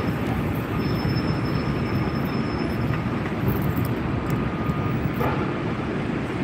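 Steady low rumble of city street noise, with traffic running by.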